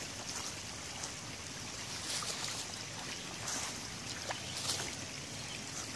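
Shallow creek water trickling, with a few short rustles and splashes as hands pull wet leaves and mud out of the channel.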